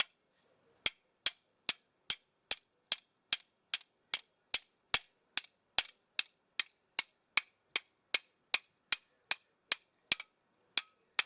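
Hammer tapping a knurled steel hinge pin into a 1969 Camaro door hinge: a steady run of sharp metallic strikes, about two or three a second, each with a short ring.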